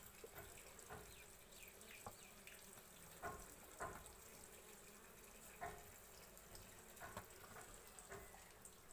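Near silence: low room tone with a few soft, scattered clicks and scrapes, about eight over the stretch, of things being handled.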